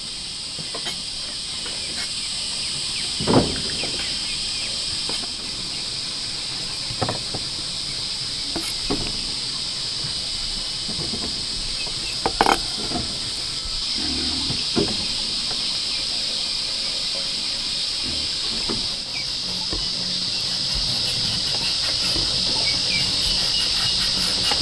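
Knife slicing raw pork belly on a thick wooden chopping board, with a few sharp knocks of the blade against the wood at irregular intervals, over a steady high hiss.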